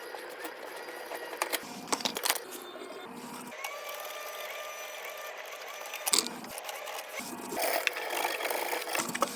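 Tool work on plumbing fittings: scattered clicks and knocks, with a steady mechanical whirring for a couple of seconds in the middle.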